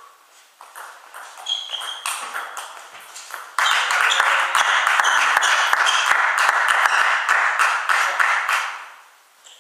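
Table tennis rally: sharp knocks of the ball off bats and table, with shoe squeaks on the hall floor. The point ends after about three and a half seconds, and loud clapping follows for about five seconds before it dies away.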